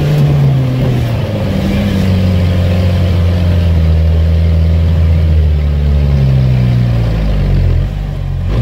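Off-road 4x4's engine working under load, heard from inside the cab, its pitch rising and falling with the throttle. It eases off about seven or eight seconds in, then picks up again at the end.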